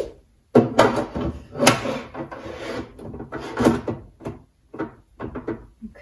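Spice jars and containers being moved about and set down in a kitchen cabinet: a run of irregular knocks, clatters and short scrapes.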